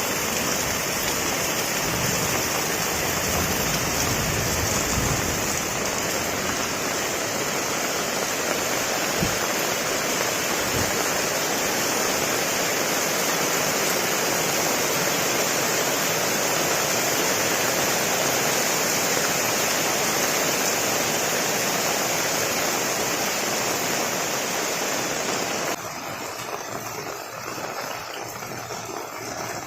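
Heavy rain falling steadily, a dense even hiss. About 26 seconds in it drops suddenly to a quieter, duller patter.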